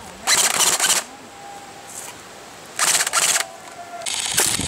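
Airsoft rifles firing short full-auto bursts: three rapid-fire bursts of about half a second each, the first a little after the start, the second about three seconds in, the third near the end.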